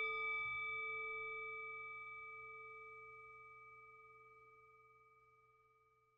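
A single bell-like chime from an intro logo sting, ringing out and fading slowly until it dies away about five seconds in, its higher overtones fading first.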